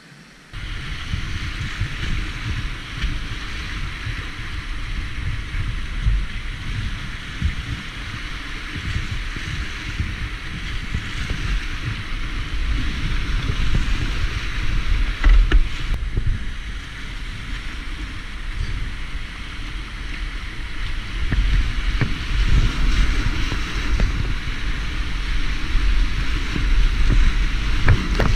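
River whitewater rushing and splashing around a kayak running rapids, with heavy low buffeting on the microphone. The noise cuts in about half a second in and grows louder toward the end.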